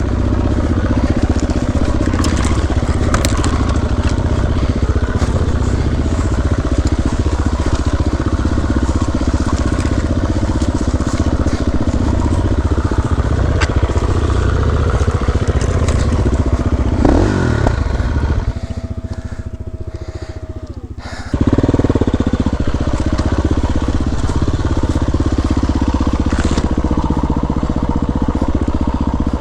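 Dirt bike engine running at low speed under constant clutch slipping, with revs rising and falling for slow, tight balance turns. About two-thirds of the way through the engine drops back to a lower note for a few seconds, then picks up again sharply.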